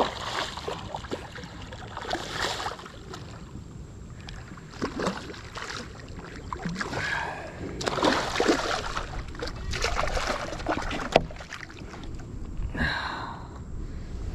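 Paddle strokes swishing and splashing in the water beside a paddleboard, a stroke every two to three seconds, with low wind rumble on the microphone.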